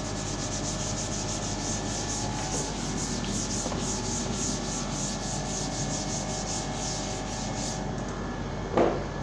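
Chalkboard duster wiping chalk off a blackboard in rhythmic back-and-forth strokes, about three a second, stopping about eight seconds in. A short vocal sound follows near the end.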